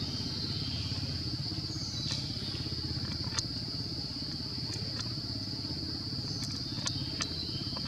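A steady, high-pitched insect chorus drones over a low, steady rumble, with a few faint clicks.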